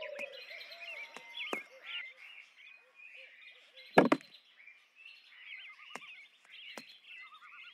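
Small birds chirping and trilling, with a few sharp knocks scattered through; the loudest is a double knock about four seconds in.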